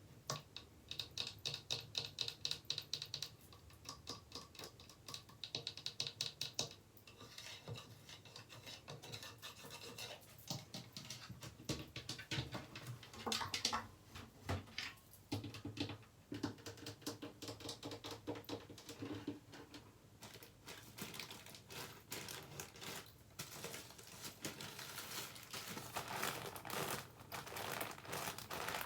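Fast tapping and scratching on hard objects, in dense runs of quick clicks; some stretches of taps ring with a high tone.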